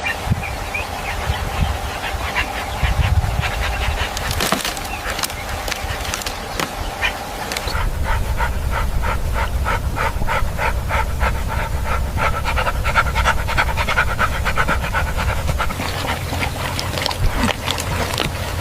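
An animal panting in quick, even breaths, most regular from about eight seconds in. A steady tone runs under it in the first half.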